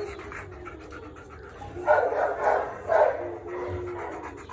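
A dog panting at the kennel bars, with three louder breaths about two to three seconds in.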